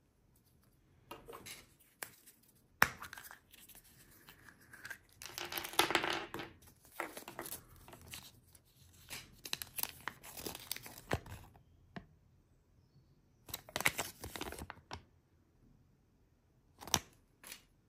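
Kinder Surprise instruction leaflet and small printed toy wrapper crinkling and rustling as they are handled and unfolded, in irregular bursts with a pause in the middle. A single sharp click sounds about three seconds in.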